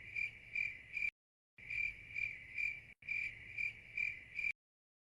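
Cricket chirping: a steady run of short chirps, about two or three a second, broken twice by dead silence.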